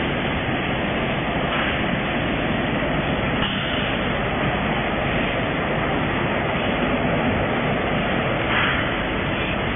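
Steady, even machinery noise of automatic vertical form-fill-seal packing machines and their conveyors running.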